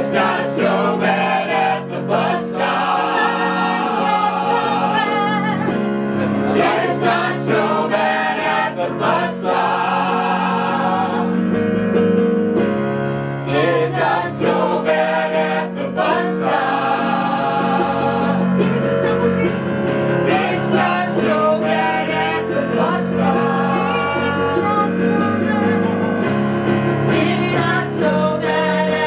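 Several voices singing together in an improvised musical number, accompanied by a keyboard.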